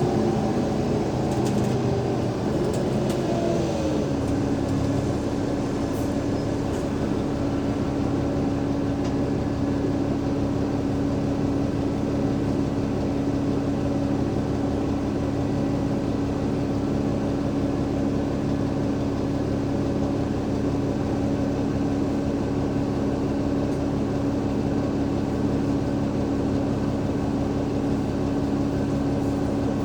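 Double-decker bus drivetrain, a Cummins ISL8.9 diesel with a ZF Ecolife automatic gearbox, heard from inside the bus. Its tones fall in pitch over the first few seconds as it slows, then it settles into a steady hum with one constant tone over a low rumble.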